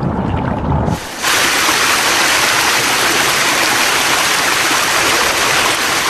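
A low, muffled rumble that cuts off about a second in, replaced by a steady loud rushing of river water flowing over rocks.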